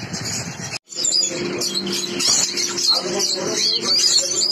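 Many cage birds chirping and twittering at once: dense, high-pitched chatter with a steady low hum underneath. The sound drops out briefly just under a second in, then the chirping resumes.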